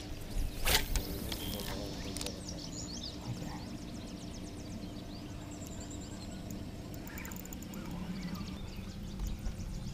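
A fishing reel being wound as a crankbait is retrieved, with birds calling around the lake and a brief rush of noise just under a second in.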